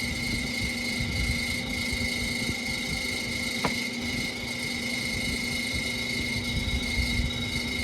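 Hanging garage unit heater's blower fan motor running with a steady high-pitched screech over a low hum, with a single click a little under four seconds in. The screech is the sign of a failing fan motor, which the owner thinks may be the bearing or the brushes.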